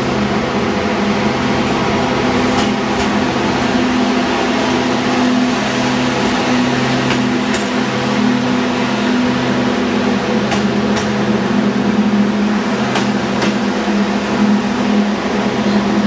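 Diesel engine of a Matisa track maintenance machine running with a steady low drone as it passes at close range, with a few sharp clicks at irregular intervals.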